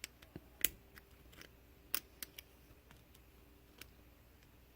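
Scattered sharp metallic clicks and ticks of a screwdriver working at a padlock to pry off its retaining clips, about half a dozen, the loudest about two thirds of a second in and near two seconds in.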